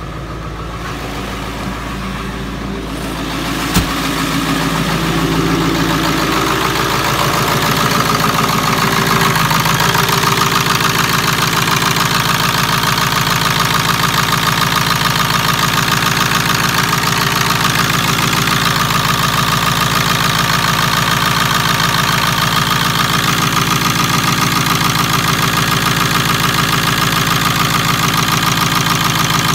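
Ford 7.3L PowerStroke turbo-diesel V8 idling steadily, just after a new lift pump was fitted; by the owner's account it is running much smoother. The idle grows louder over the first few seconds, going from the cab to up close in the engine bay. A single sharp knock comes about four seconds in.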